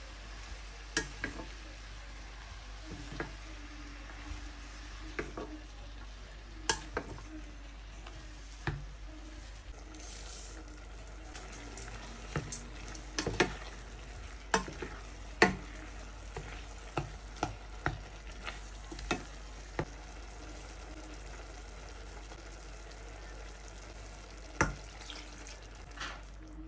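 Chopped purslane and vegetables sizzling in olive oil in a stainless steel pot while a spatula stirs them, with sharp clicks and knocks as it hits the pot, coming thickest in the middle stretch.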